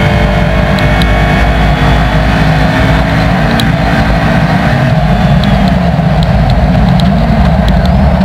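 Inside the cabin of a Datsun 1200 rally car fitted with a Nissan SR20VE engine: the engine runs hard at high revs under full throttle on gravel, then the driver lifts off and the revs drop near the end. A few sharp ticks sound through it.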